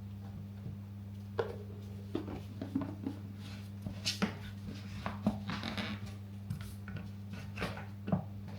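Scattered light clicks and knocks of a plastic sports bottle with an agitator inside being handled, over a steady low hum.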